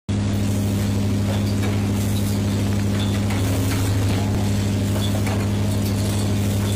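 Rotary glass-forming machine running with a steady low hum, with scattered light clicks and clinks of glass.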